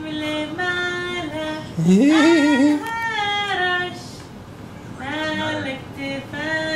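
A voice singing in held, sing-song notes, several flat sustained tones in a row, with a wavering, sliding stretch about two seconds in and a brief lull a little past the middle.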